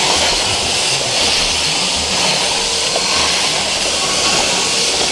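CNC plasma cutter's torch cutting 18-gauge steel at 45 amps: a steady, loud hiss of the arc and air jet.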